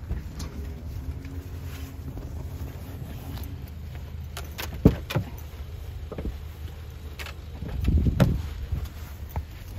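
Wind rumbling on the microphone, with a sharp click about halfway through and another near the end as a Subaru Outback's front door is opened.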